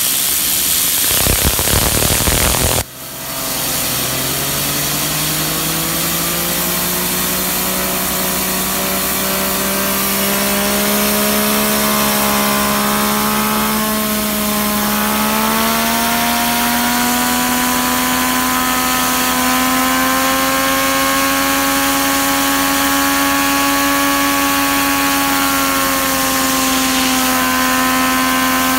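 Compressed air hissing from a blow gun against a fidget spinner, spinning it up: after a loud blast of air and a brief break about three seconds in, the spinner's whir rises steadily in pitch for about twenty seconds and then holds a high, steady whine over the air hiss.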